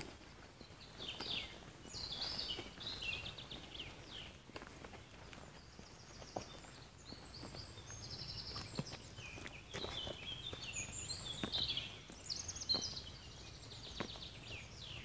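Songbirds singing, one fast trilled phrase after another, with the walker's footsteps on a dirt track.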